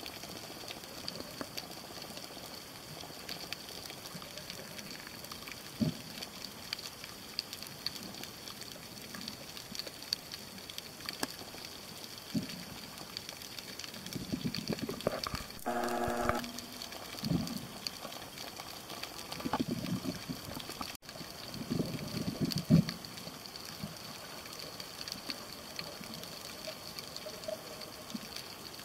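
Underwater ambience: a steady hiss with scattered faint ticks and a few muffled low thumps of water movement, clustered in the middle. About halfway through comes one short buzzing tone, under a second long.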